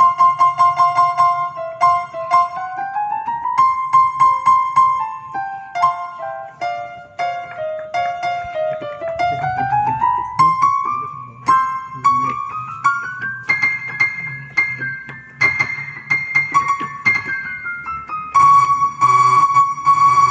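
Yamaha PSR-S975 keyboard played with a piano voice: single notes and stepwise runs going up and down the keys, ending in a fast stretch of rapidly repeated notes near the end.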